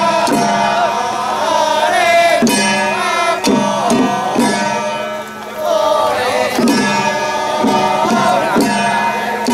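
Live traditional temple ritual music: a pitched melody with sliding notes over a steady drone, punctuated by irregular drum and gong strikes.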